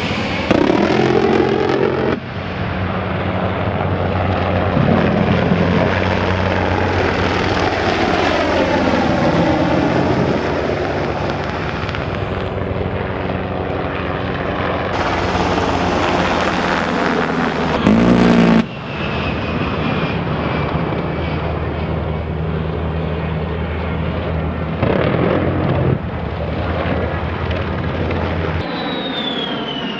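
A-10 Thunderbolt II's twin turbofan engines on low passes: a loud, continuous whine and rumble whose pitch slides as the jet goes by. The sound changes abruptly several times, with a falling whine near the end.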